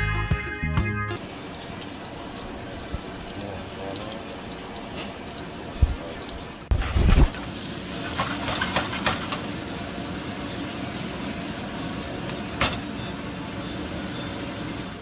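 Sliced red onions and vegetables sizzling in hot oil in a pan, a steady frying hiss with a few sharp pops. A dull thump sounds about seven seconds in. Guitar music plays for the first second.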